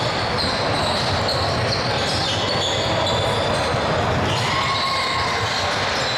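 Basketball game play on an indoor court: the ball bouncing amid the steady noise of play, with short high squeaks scattered throughout.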